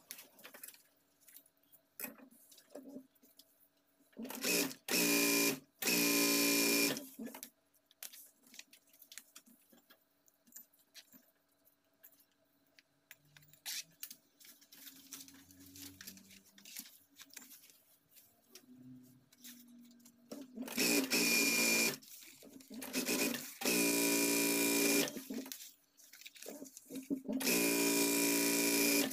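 Industrial flatbed sewing machine running in short bursts of stitching through layered bag fabric: a few bursts about four to seven seconds in, then three more near the end, each lasting one to two seconds. Between the bursts there are quiet rustles and taps of fabric being handled.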